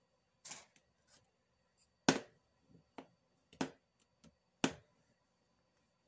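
A few sharp knocks and taps, about five in six seconds, the loudest about two seconds in and again near the end: a lump of polymer clay being squeezed together by hand and set down on a hard craft mat, with a clear roller being picked up.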